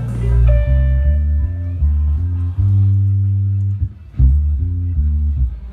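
Bass guitar playing a run of loud, held low notes through a large stage PA during a sound check, with a short gap near the middle and a higher guitar note near the start.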